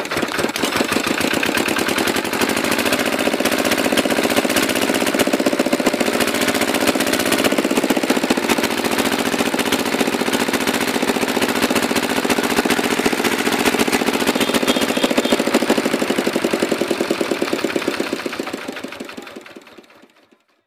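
Small single-cylinder diesel pumpset engine running with a rapid, even knocking beat, just started after its injector nozzle was set and the fuel line bled of air. The sound builds up in the first second and dies away over the last couple of seconds.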